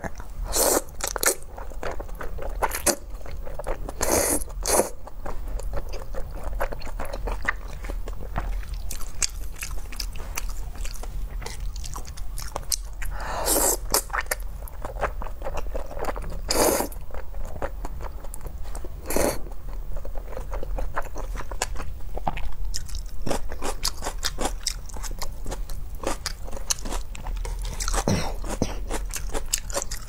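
Close-up eating sounds of thick, sauce-coated Xinjiang fried rice noodles: steady wet chewing and lip smacks, broken by several loud slurps as mouthfuls of noodles are drawn in.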